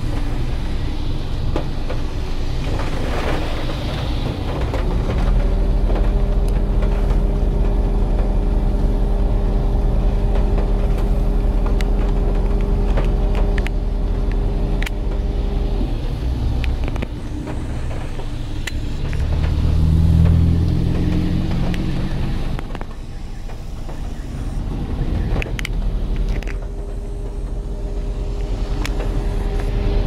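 Strong wind buffeting a car, heard from inside the cabin, as a deep steady rumble with scattered taps of rain on the glass. Under it a steady mechanical hum cuts out about halfway and returns near the end, and a deeper hum swells briefly about two-thirds of the way in.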